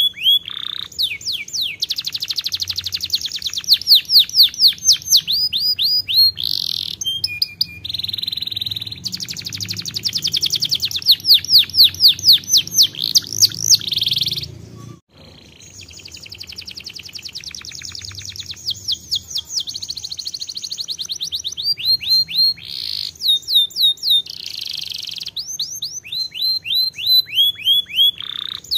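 Domestic canary singing a long song of fast repeated trills and rolls, one run of notes after another, with a brief pause about halfway through.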